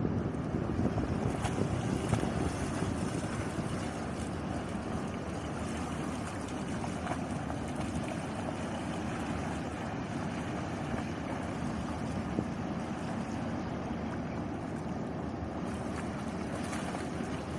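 Steady wind buffeting the microphone over small river waves lapping at a sandy shore, a little louder in the first few seconds.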